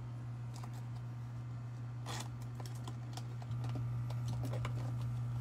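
A run of light, irregular clicks and taps over a steady low hum. The hum gets louder about halfway through.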